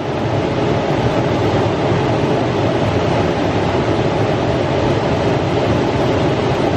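2008 Toyota 4Runner engine idling steadily, heard from beneath the vehicle, with dirty automatic transmission fluid, pumped by the running engine, streaming from a line into a drain pan during a fluid exchange.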